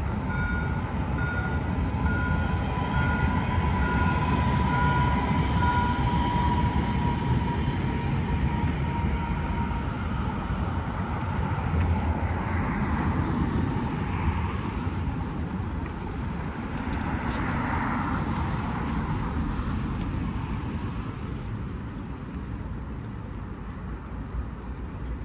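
A rail vehicle running by with a low rumble and a motor whine, while a warning beep repeats a little over once a second for the first several seconds. Two swells of louder noise come later, and the rumble eases off near the end.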